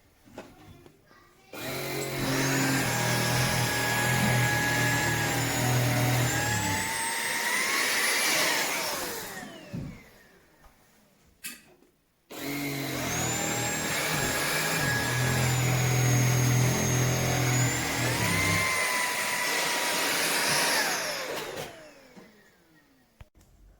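Tineco A30S cordless stick vacuum switched on twice, running about eight seconds each time: a steady motor whine over a low hum, stepping up in pitch near the end of each run, then winding down with a falling whine once switched off.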